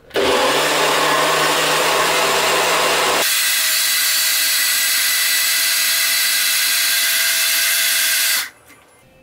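NutriBullet personal blender running on a smoothie of spinach, pineapple and frozen berries. For the first three seconds it sounds rough while the blades break up the frozen fruit and leaves. Then it changes to a smoother, steady whine as the mix turns to liquid, and it cuts off abruptly near the end.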